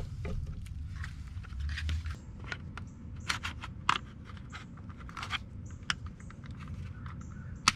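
Scattered sharp plastic clicks and scrapes as a plastic trim tool pries at the hinged plastic housing of a Honda Fit's driver window switch carrier, working it open.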